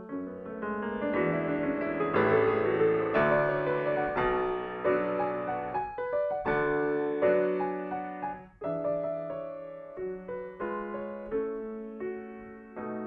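Solo grand piano playing a flowing classical passage. It swells to a louder peak a couple of seconds in, breaks off briefly after about eight seconds, then carries on more softly.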